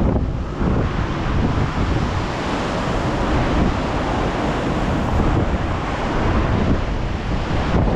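Storm-force wind buffeting the microphone in strong, continuous gusts, over the rumble of a heavy sea breaking on the coast.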